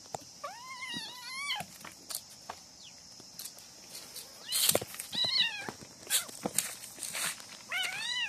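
Kitten meowing three times, each a short cry that rises then falls, as a monkey grapples with it; scuffling knocks and rustles in between.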